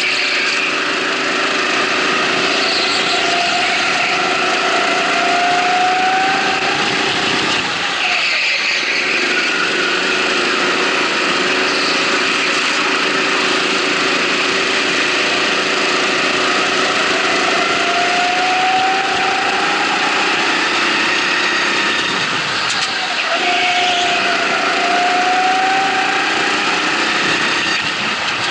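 Small go-kart engine heard from on board, revving up steadily along the straights and dropping off sharply into the corners, twice: about eight seconds in and again about fifteen seconds later. Other karts' engines run close by.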